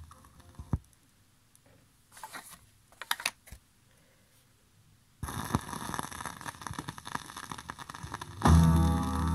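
A few faint clicks, then, about five seconds in, the steady crackle and hiss of a vinyl 7-inch single's lead-in groove under the stylus. Near the end, ska music starts playing from the record.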